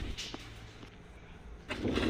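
Faint handling of an old TV cable connector pin being pulled out, with one small click, over a steady low hum; a louder scraping noise starts near the end.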